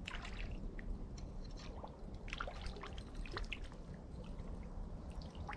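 Water trickling and dripping: a run of small, irregular plinks and gurgles over a steady low background.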